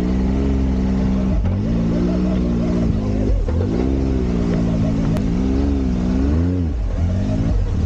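Off-road buggy's engine revving up and down with the throttle, its pitch rising and falling in several swells over a low rumble.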